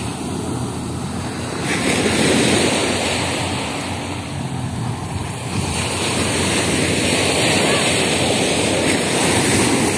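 Sea surf washing up the beach: a steady rush of breaking waves that swells a little about two seconds in.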